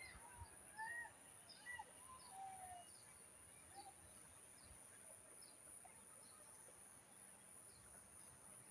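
Faint bird chirps and short calls, dying away within the first three seconds, over near silence with a steady faint high hiss.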